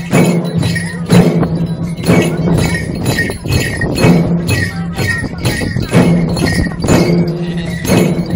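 Chyabrung, Limbu double-headed barrel drums, played together by a group of dancers in a steady rhythm, with a strong beat about once a second and lighter strokes in between.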